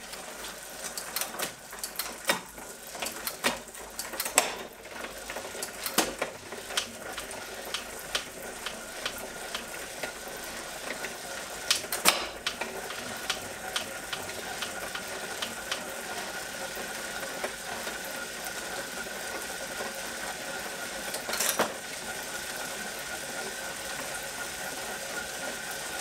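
Bicycle drivetrain running on a Wahoo KICKR CORE direct-drive smart trainer as the rider builds up to about 20 mph: chain and cassette whirring, with several sharp clicks from gear shifts in the first half. From about halfway on it settles into a steady whir with a faint high hum.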